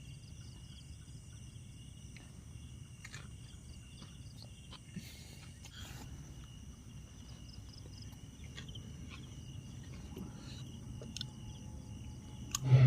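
Night insects, crickets, chirring in several steady high tones over a low, steady distant rumble of an aircraft passing overhead. A few faint clicks sound now and then.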